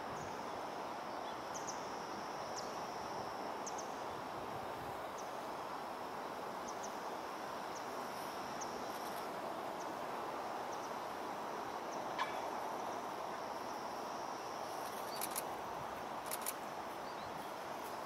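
Outdoor ambience: a steady background hiss with a faint high insect trill through the first half. A few short, sharp chirps or clicks come in the second half.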